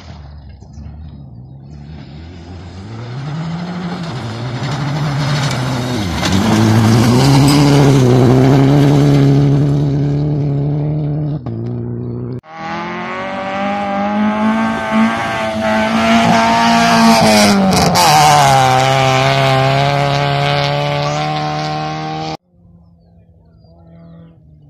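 Rally cars at full speed on a gravel stage. Each engine revs hard, its pitch rising and dropping with gear changes and lifts as the car nears and passes close, over a hiss of tyres on loose gravel. The sound breaks off abruptly twice, and the last car is fainter and farther away.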